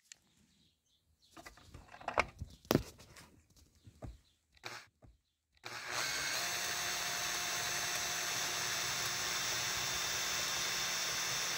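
A few light handling knocks, then about halfway in a cordless drill starts and runs at a steady speed, pre-drilling a screw hole through the metal bottom piece of a roller-shutter housing.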